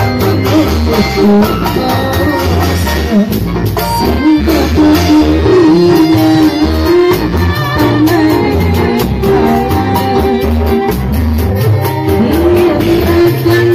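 Live dangdut music from a street organ-dangdut rig's loudspeakers: a girl's amplified singing voice carrying a wavering melody over a steady drum beat and backing instruments.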